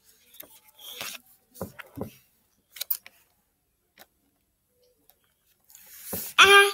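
A book page being turned, the paper rustling, followed by a few soft knocks and taps of hands on the open book and a scattered click or two. Near the end comes a child's brief voiced exclamation, the loudest sound here.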